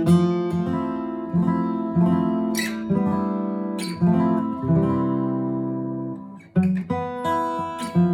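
Yamaki Deluxe A 333 acoustic guitar played solo: a run of picked notes and ringing chords. The sound dies away briefly about six and a half seconds in, then a new chord is struck.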